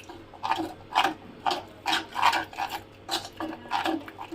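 A thick batter of bhakri flour, salt and water being stirred in a bowl, with repeated scraping strokes about two or three a second.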